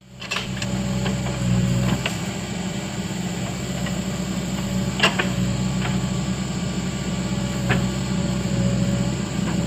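Case backhoe loader's diesel engine running steadily under load as the rear backhoe digs, with a few sharp clanks from the bucket and arm.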